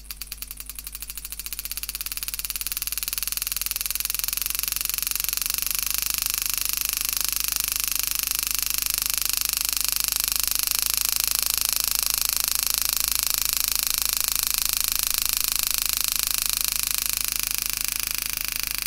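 Homemade hand engraving machine's handpiece hammering a 120-degree carbide graver through 304 stainless steel at a rapid, even strike rate, driving a deep cut. The strikes grow louder over the first few seconds, then hold steady.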